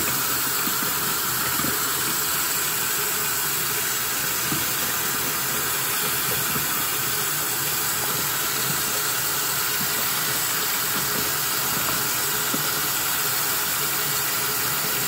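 Hot water running steadily from a bathroom sink tap, pouring over a frozen plastic medicine container held under the stream and splashing into the basin.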